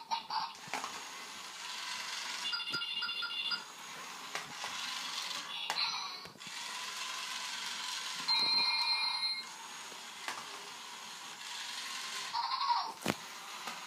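Zhu Zhu Puppies battery-powered toy dog scooting across a tile floor, its motor whirring steadily. Twice its speaker plays electronic sound effects: a run of short beeping tones about three seconds in, and a held chime-like tone around eight seconds in. A few light clicks are heard as well.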